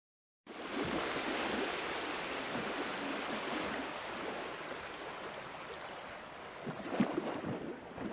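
Sea surf washing on a shore: a steady hiss of waves that cuts in abruptly about half a second in, with a few faint knocks near the end.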